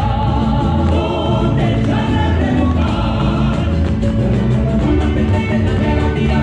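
Mariachi band playing live: violins in harmony over strummed guitars and a steady bass rhythm.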